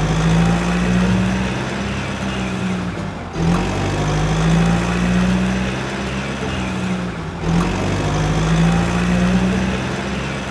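Sound effect of a heavy engine running steadily at idle, a low hum that cuts out briefly and restarts about every four seconds, as if looped.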